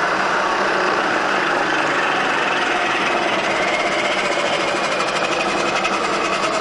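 Vari-Speed head of a Lion turret milling machine running steadily, the spindle motor and belt drive humming with many steady tones, as the spindle is set to about 500 RPM.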